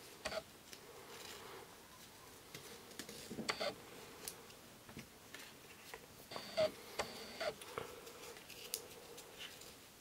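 A nylon NATO strap being threaded through a watch case by hand: soft rustles of the woven fabric with light clicks of its steel keepers and buckle against the steel case, coming every second or so and in small clusters.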